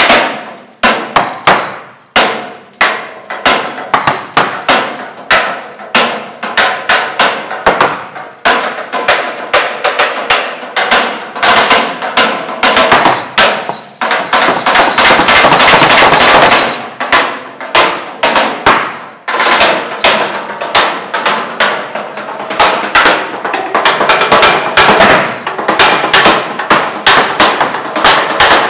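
Improvised drumming with wooden sticks on the bare metal tube frame of a camper body: fast, rhythmic strikes on the metal tubes, with a long continuous roll about halfway through.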